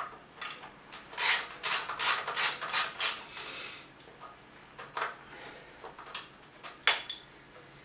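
Hand socket ratchet clicking as bolts are worked on a Bridgeport J-head milling machine head: a run of clicks about three or four a second, then a few single clicks later on.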